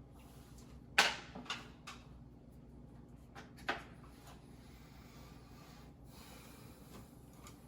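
A few short clicks and knocks from hands working a plastic wire nut and the wires at a ceiling electrical box, the loudest about a second in and another near four seconds, over faint steady hiss.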